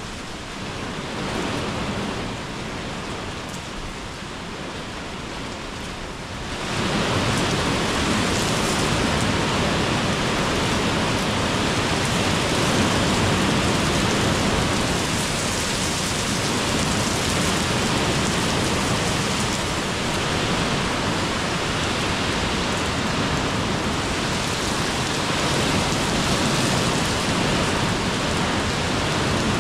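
Rain falling on a paved courtyard, a steady hiss of drops on the wet ground that grows louder about six and a half seconds in and stays there.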